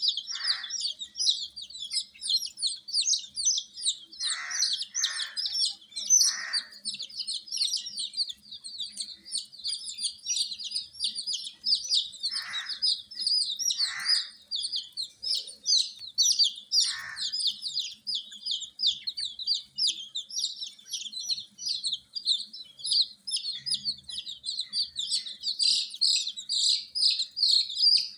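A brood of domestic chicks peeping without pause, many high, short chirps overlapping into a constant chatter. A few short, lower, rougher calls break in now and then, mostly in the first two-thirds.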